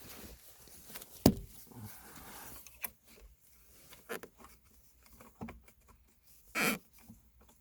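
Scattered clicks, knocks and rustling from hands handling a plastic gear shifter assembly and its wiring connectors, with one sharp knock about a second in and a short louder rustle near the end.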